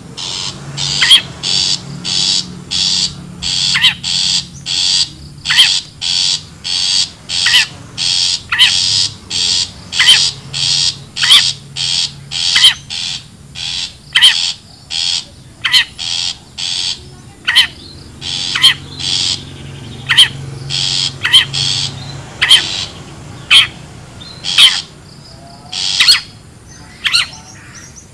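Long-tailed shrike (cendet/pentet) giving harsh, scolding calls over and over, one to two a second, as a lure sound for trapping the species.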